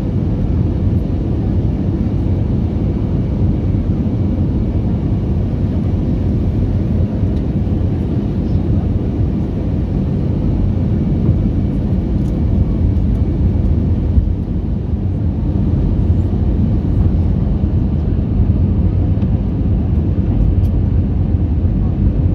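Steady low roar of a jet airliner's turbofan engines and rushing air, heard from inside the passenger cabin while the plane descends to land.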